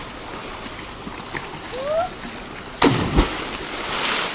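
Flowing river water and splashing from swimmers in a rocky pool, with a short rising voice call about two seconds in. Two sharp thumps follow about three seconds in, the loudest sounds.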